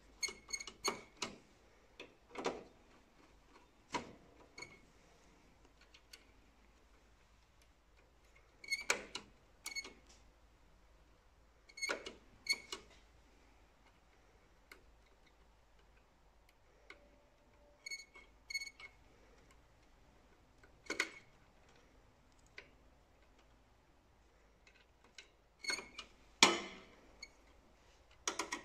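Screwdriver and fingers working screws and wire connectors on the metal chassis of an Océ PlotWave 300 scanner: scattered sharp clicks and taps in small clusters, several with a brief metallic ring. The loudest cluster comes near the end.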